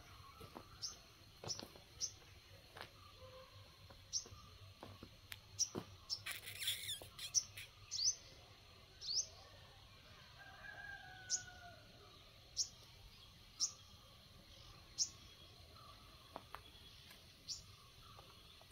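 A small bird chirping repeatedly: short, high, downward-sweeping chirps about once a second, with a brief rustling burst about six seconds in.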